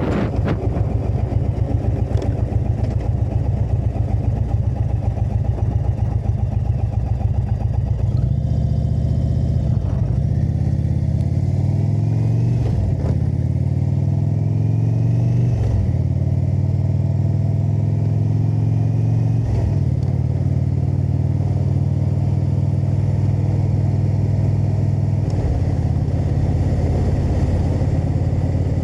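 Indian Super Chief Limited's air-cooled V-twin engine cruising steadily, then accelerating through several upshifts from about eight seconds in, each rising pitch broken by a brief drop at the shift, before it settles back to a steady cruise.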